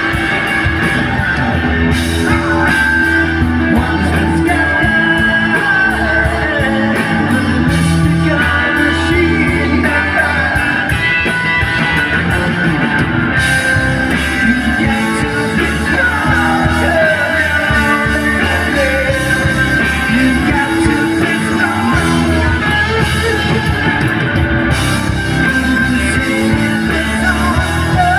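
A rock band playing live through the PA: electric guitar with bending notes over bass, drums and organ.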